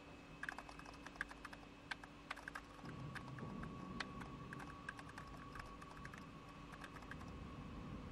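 Computer terminal keyboard being typed on in quick, irregular keystrokes, entering an access code and password. Under it runs a steady electronic hum, with a low rumble joining about three seconds in.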